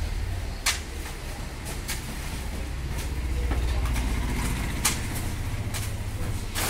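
A motor running with a steady low rumble, with several sharp knocks at irregular intervals, the loudest about half a second in and again near the end.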